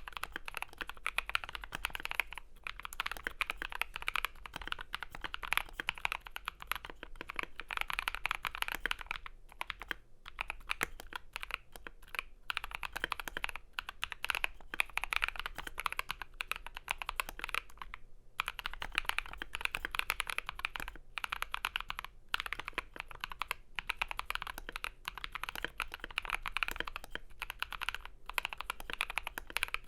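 Continuous fast typing on an FL.eSports MK870 mechanical keyboard with a polycarbonate plate, lubed Gazzew Boba U4T tactile switches and AKKO ASA keycaps. A dense run of muted keystrokes with a few short pauses.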